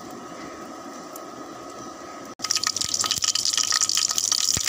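Fennel seeds and whole spices sizzling in hot oil in a kadai. A steady, quieter sizzle jumps suddenly louder a little past halfway into a dense crackling sizzle with many small pops, which stops abruptly.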